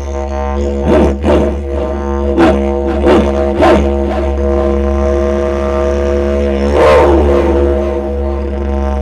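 Didgeridoo playing a steady low drone. Five sharp, punchy accents break it over the first four seconds, and a longer swell comes about seven seconds in.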